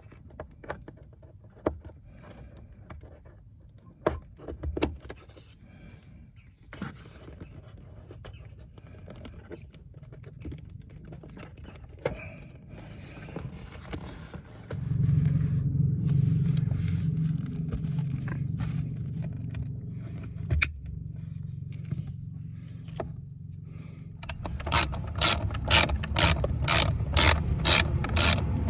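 Hand work on car air-conditioning parts: scattered clicks and scraping of plastic parts being handled. About halfway through a steady low hum sets in, and near the end a fast, even clicking starts, about two to three clicks a second, like a ratchet.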